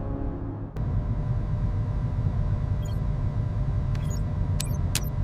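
Steady low rumble of a spacecraft cabin ambience with a faint hum. It takes over when music cuts off under a second in. A few short clicks come from about three seconds in.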